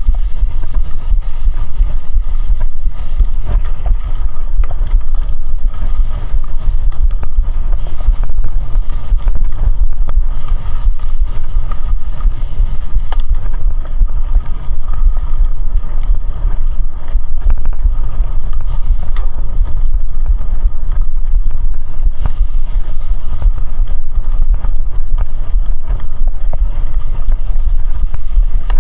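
Loud, steady wind buffeting on the microphone, heard as a low rumble, with a faint steady tone and scattered light ticks underneath.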